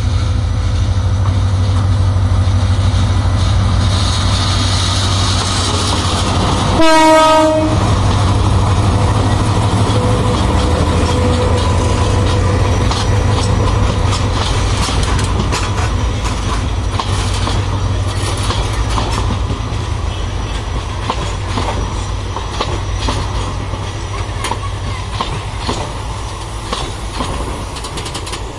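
Metre-gauge diesel-electric locomotive hauling a goods train slowly past, its engine drone giving way to one short horn blast about seven seconds in. Then a long rake of covered goods wagons rolls by, wheels clicking steadily over the rail joints, the sound slowly fading.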